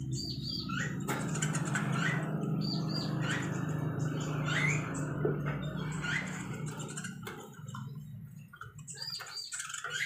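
Small caged birds chirping and fluttering inside their wire cages while a feed cup is put in, over a steady low hum. A few sharp clicks come near the end.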